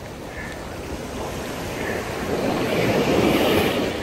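Surf washing up on a sandy beach, a wave swelling louder about two-thirds of the way through.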